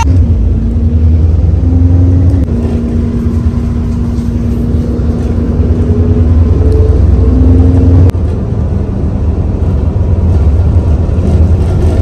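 Bus engine and drivetrain running: a loud low rumble with a steady whine over it that steps up and down in pitch several times, and a single click about eight seconds in.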